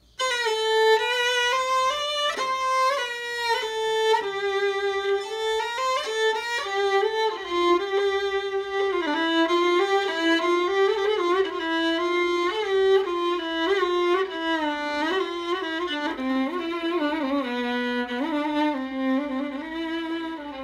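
Solo bowed violin playing a melodic phrase in maqam Rast. The line moves note to note and works its way downward, settling on a long, low held note near the end.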